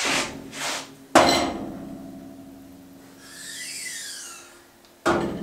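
Steel parts being handled: a hard metal clang about a second in that rings on and fades over a couple of seconds, with a shorter knock at the start and another near the end.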